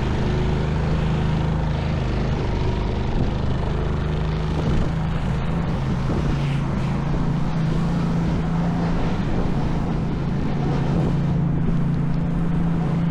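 A vehicle engine running steadily, a low even hum over general city street noise.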